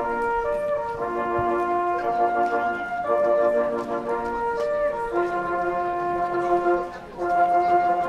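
Brass ensemble music playing slow, held chords that change about every second, with a short dip shortly before the end.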